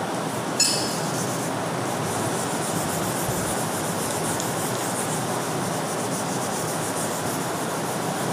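Whiteboard eraser rubbing marker writing off a whiteboard: a steady rubbing hiss, with a brief sharper scrape about half a second in.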